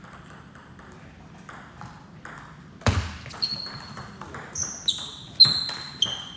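Table tennis rally: the ball clicks sharply off paddles and the table in quick succession, several hits leaving a short high ping, starting about three seconds in after a heavy thud. Faint light ticks come before it.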